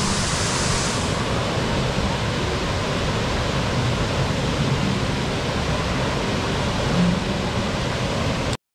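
Steady rush of water from a wave pool, with artificial waterfalls pouring into it. The sound cuts off abruptly near the end.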